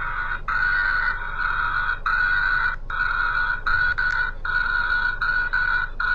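A chorus of frogs trilling, a high, buzzy trill that runs almost without pause and breaks off briefly every half second to a second.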